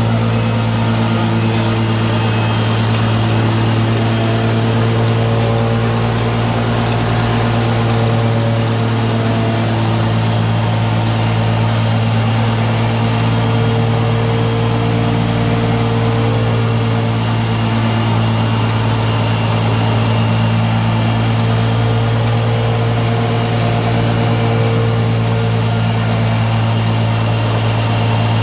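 OLIVINOX 300 mini continuous olive-oil extraction machine running with a loud, steady motor hum.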